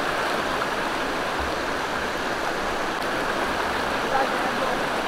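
Rocky mountain stream rushing over boulders: a steady, even rush of water.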